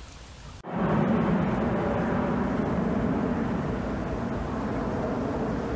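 Noise of a passing aircraft: a steady rumble that starts abruptly a little under a second in.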